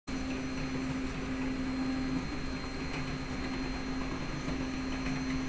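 3D printer printing: a steady motor whine over a constant hum, wavering briefly in pitch about two seconds in.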